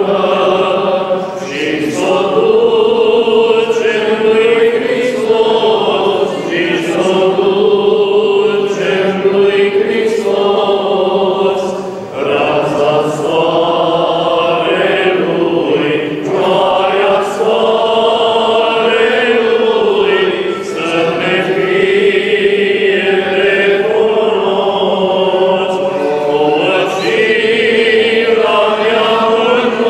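A group of Romanian Orthodox priests chanting a hymn together, men's voices sung in long held phrases with short breaks between them.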